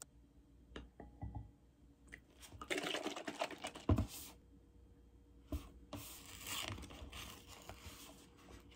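A paper milk carton handled and set down on a table with a knock, then its gable-top spout pulled open with a scratchy tearing sound.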